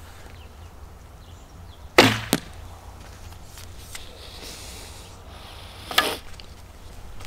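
A Black Hunter longbow being shot: a sharp release of the string about two seconds in, then a third of a second later the smack of the arrow striking a bag target. Another sharp sound comes about four seconds later.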